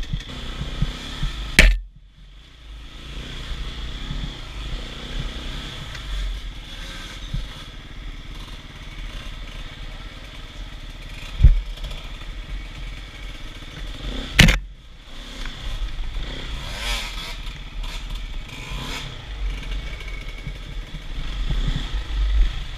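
KTM enduro motorcycle engine running as the bike rides rough off-road trails, heard from on the bike. Two sharp clicks come about one and a half seconds in and again about fourteen and a half seconds in.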